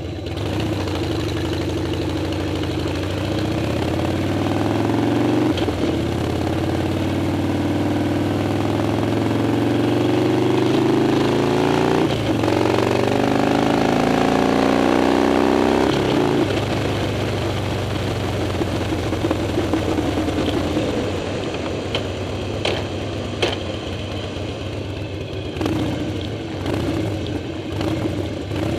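Harley-Davidson Dyna's V-twin engine pulling away from a stop, rising in pitch through three gears with a short break at each shift, then backing off to a lower, steadier run. A few sharp clicks or rattles sound near the end.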